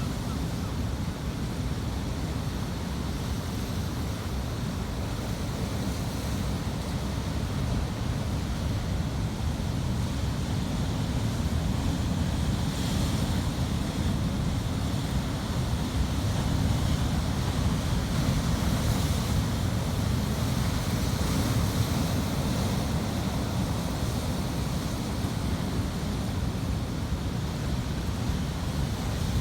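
Ocean waves breaking and washing on the shore in a continuous rumbling wash, swelling a little louder in the middle, with some wind noise on the microphone.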